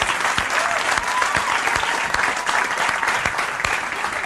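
Audience applauding, dense clapping mixed with some laughter.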